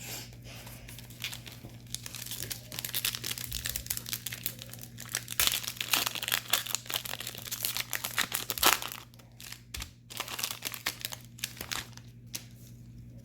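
Foil wrapper of a Topps baseball card pack crinkling and tearing as the pack is ripped open, busiest through the middle and thinning out after about nine seconds.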